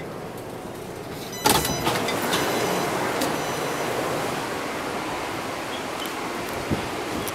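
Taipei Metro C381 train's doors opening with a sudden loud clunk about a second and a half in, followed by steady noise of the standing train and open platform.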